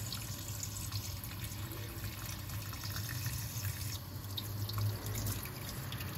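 Kitchen tap running in a thin stream into a stainless steel sink, splashing over razor clams being rinsed and rubbed by hand. A steady low hum sits beneath the water.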